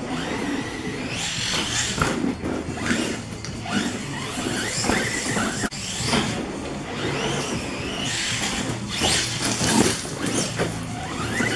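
Brushless electric motor of an Arrma Talion RC truck whining as the throttle is worked, rising and falling in pitch again and again, with a few sharp knocks.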